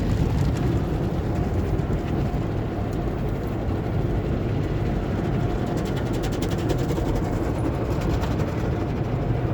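Automatic car wash heard from inside the car's cabin: a steady, muffled rush of water spray and wash machinery on the bodywork, with a spell of light ticks a little past the middle.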